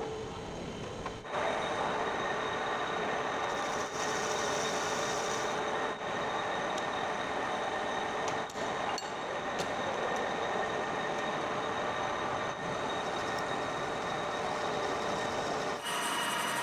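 Metal lathe starting up about a second in and then running steadily, its spindle and gearing giving a constant mechanical whine with several steady tones.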